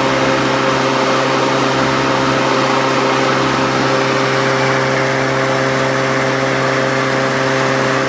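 Black & Decker electric lawnmower's brushed motor, with its cover off, running steadily at speed: a steady hum and whir. Its brushes and commutator have been freshly cleaned, and the brushes are sparking in a normal fashion.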